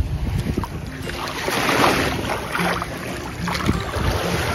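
Bare feet wading into calm, shallow seawater, with soft splashing that swells about halfway through. Wind rumbles on the microphone throughout.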